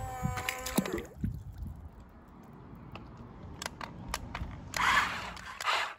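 A few light clicks and two short rustling, scraping noises near the end as small plastic and die-cast toy cars are handled.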